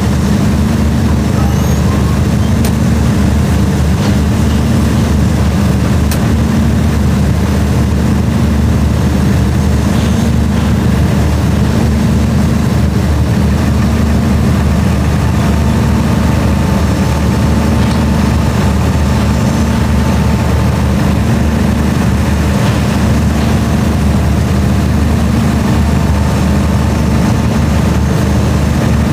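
Heavy diesel engine running steadily, a loud, constant low drone.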